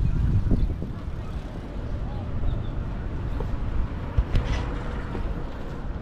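Outdoor ambience: a low, uneven rumble of road traffic, louder in the first second and then steadier.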